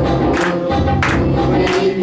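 Group of voices singing a Christian worship song, with a steady bass and a sharp percussion hit about every two-thirds of a second.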